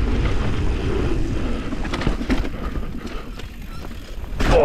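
Mountain bike rolling fast down a dirt trail: tyre rumble, rattling and wind noise on the microphone. Near the end comes a loud thump as the bike lands hard off a drop, a rough landing that the suspension fork absorbs.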